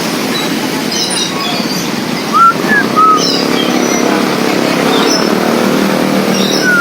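Green leafbird (cucak ijo) singing: scattered short high chirps and a couple of louder slurred whistled notes about two and a half to three seconds in, over a steady low background noise.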